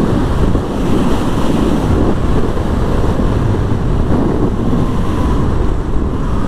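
Steady wind rush buffeting the microphone of a motorcycle on the move, with a faint steady tone coming in near the end.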